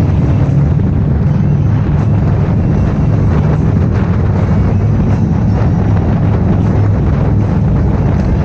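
Harley-Davidson V-twin motorcycle running steadily at highway cruising speed in a road tunnel, a loud constant low rumble, with wind buffeting the microphone.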